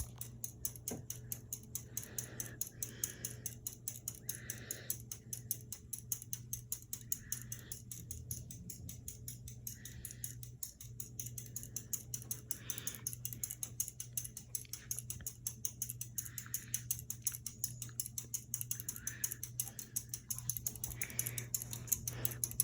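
Close-mount ceiling fan running on low speed: a steady motor hum with a fast, even light ticking, about four or five ticks a second.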